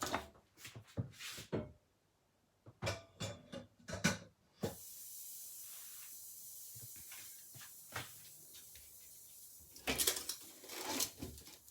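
Scattered light knocks and clicks of kitchen things being handled, then a steady faint hiss from about five seconds in, with a few more knocks near the end.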